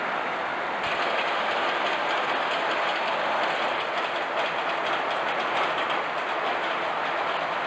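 Steady rushing noise, joined about a second in by faint, fast clicking.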